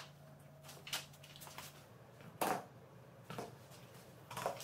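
A few separate dull knocks as small rubber-tyred wheels are handled and set down on a tiled floor, the loudest about halfway through. A faint steady hum stops about two seconds in.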